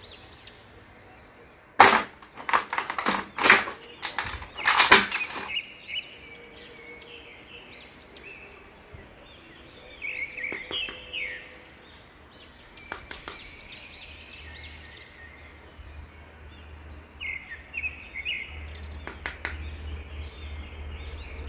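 Plastic action figures being handled and lifted out of a clear plastic blister tray: a cluster of sharp clicks and crackles a couple of seconds in, then occasional quieter taps.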